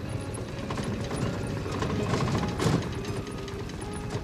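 Old car jolting along a railroad track, its tyres clattering rapidly over the ties and its body rattling, with one harder jolt about two and a half seconds in.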